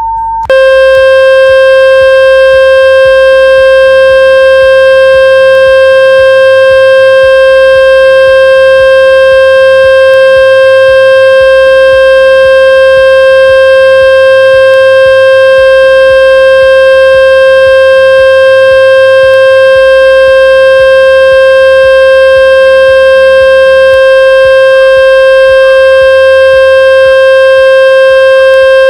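A loud, steady buzzing tone of one fixed pitch with many overtones: a generated water-ejection tone for driving water and dust out of a phone's loudspeaker. About half a second in it replaces a higher, clean tone.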